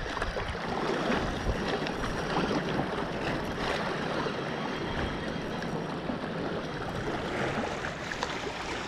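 Steady wash of small waves and wind at a rocky shoreline, with faint ticking from a spinning reel being cranked against a hooked fish.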